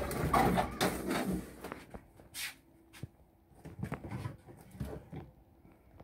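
A cupboard door swings open with knocks and a rustle in the first second or so. Scattered clicks and rummaging sounds follow as things inside are moved about.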